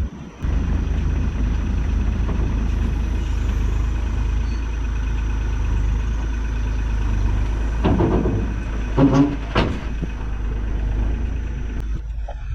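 Bobcat E42 mini excavator's diesel engine running steadily under way, with a few louder bursts of machine noise about eight to nine and a half seconds in.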